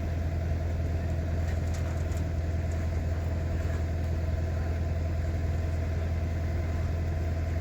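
Farm vehicle engine idling steadily with an even low hum.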